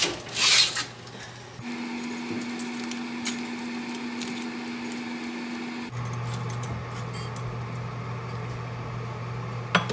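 Oven rack and foil-lined pan pulled out of the oven with a loud clatter and scrape in the first second. Then a steady hum, its pitch changing about six seconds in, with light clicks of metal tongs turning chicken wings over on a wire rack.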